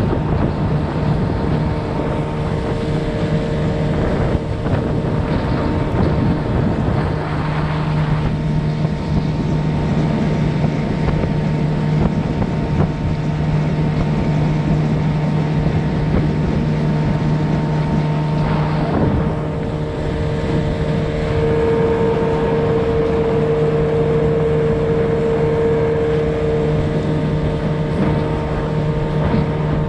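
Small open skiff's outboard motor running at a steady cruising speed, a constant engine drone, with wind buffeting the microphone and water rushing along the hull.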